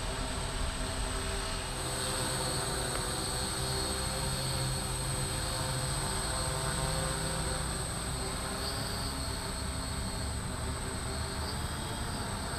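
RCTimer RCT800 hexacopter in flight: six Sunnysky 600 kV brushless motors spinning 13x6.5 carbon-fibre props, a steady multi-rotor drone made of several held tones with a thin high whine over it.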